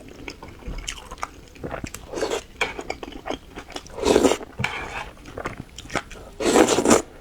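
Close-miked eating: wet chewing and smacking with many small mouth clicks, and three louder bites or mouthfuls spread through it.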